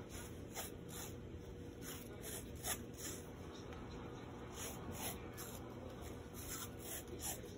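Hands rubbing and smoothing white athletic tape onto an ankle, a string of short, scratchy brushing strokes at an irregular pace.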